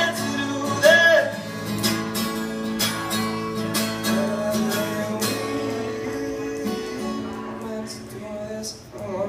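Acoustic guitar strummed in a quick, steady rhythm under a man's singing voice. Near the end the strumming thins out and the sound gets quieter.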